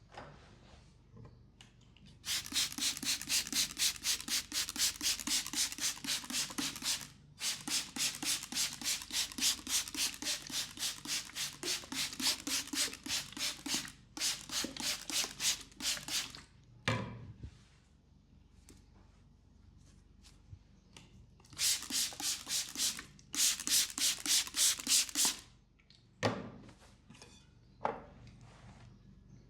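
Fast, rhythmic rubbing by hands on skin, about four strokes a second, in several long runs. A single dull thump falls in each of two pauses.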